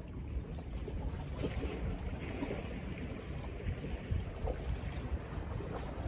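Wind buffeting the microphone as a low, gusty rumble, over the wash of small sea waves against shore rocks.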